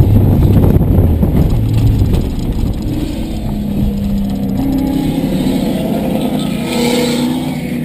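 Mitsubishi Lancer Evolution IX's turbocharged four-cylinder engine heard from inside the cabin, with the car down on power and unable to make the uphill climb out of the corner. There is a heavy rumble for the first couple of seconds, then it gets quieter, and the engine note rises slowly through the second half.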